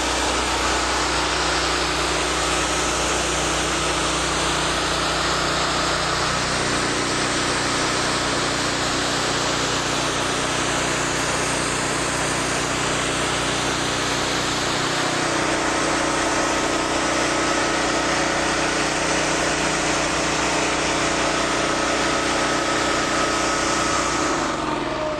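Gas pressure washer running under load: its Honda GX390 single-cylinder engine drives a Cat triplex pump at a steady speed, under the hiss of the high-pressure water jet striking concrete and a garage door. The engine's tone shifts slightly a few times, and the sound fades away near the end.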